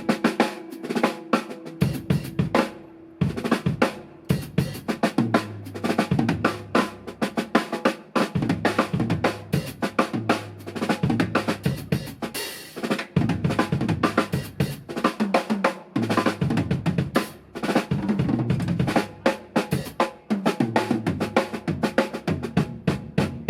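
Drum kit solo played live: rapid, dense strokes on snare, bass drum and toms, with cymbals.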